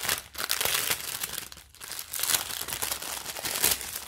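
Clear plastic packaging crinkling irregularly as hands open a bag and pull out small packets of diamond-painting rhinestones.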